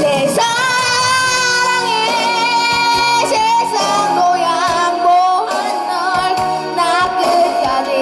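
A child singing into a microphone over a pop backing track with a steady beat, amplified through stage loudspeakers. The voice holds one long high note near the start, then moves through shorter sung phrases.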